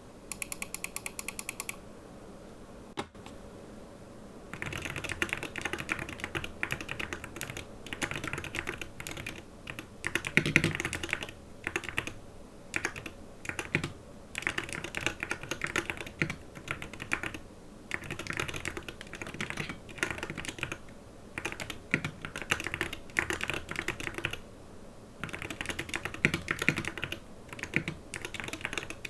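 Typing on a Yuki Aim Polar 65 mechanical keyboard: a short run of quick, even clicks and a single click, then from about four seconds in, steady bursts of keystrokes with brief pauses.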